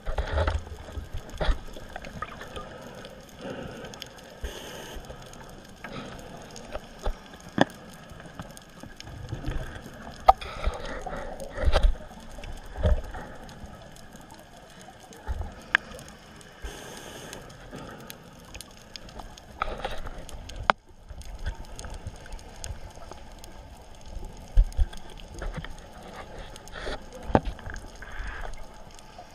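Underwater sound picked up through a camera housing on a scuba dive: irregular sharp clicks and crackles over a low rumbling noise.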